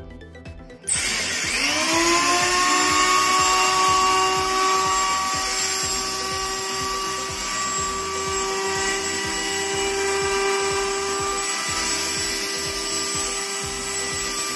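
Electric hand planer switched on about a second in: its motor and cutter drum spin up with a rising whine, then run on steadily at full speed. This is a test run after fitting new bearings.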